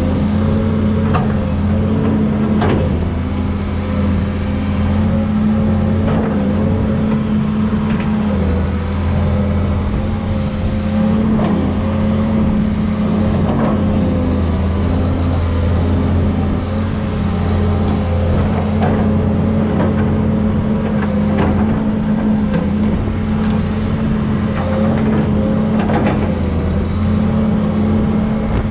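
Kobelco 210 excavator's diesel engine running steadily under load while it works the bucket under a tree, with scattered knocks and cracks through it.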